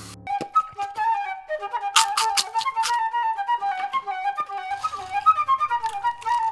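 Background music: a quick, wandering flute melody that starts abruptly just after the opening, with a few sharp clicks about two seconds in.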